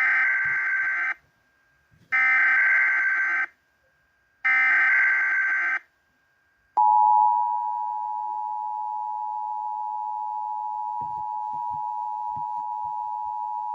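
Emergency Alert System test: three short bursts of the SAME digital header data, each about a second long, then, about 7 seconds in, the steady two-tone EAS attention signal (853 and 960 Hz).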